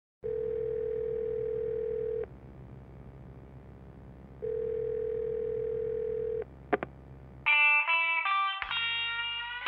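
Telephone ringback tone, the caller's side of a ringing line: a steady tone sounding twice, about two seconds each, with a low hum beneath. A click follows, then an electric guitar comes in about three-quarters of the way through.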